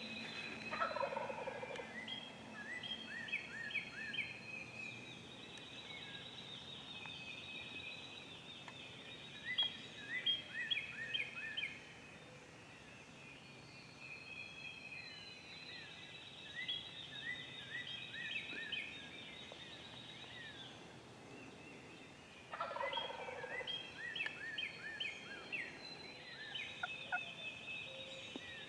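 Wild turkey gobbler gobbling twice, about twenty seconds apart, each gobble a falling rattle. Small songbirds sing and chirp throughout.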